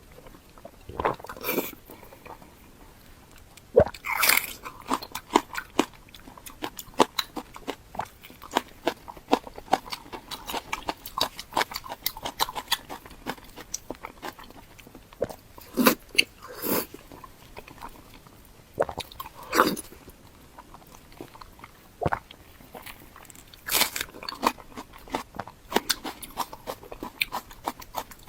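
A person eating close to the microphone: steady chewing and many small mouth clicks, broken by several louder crunching bites spread through.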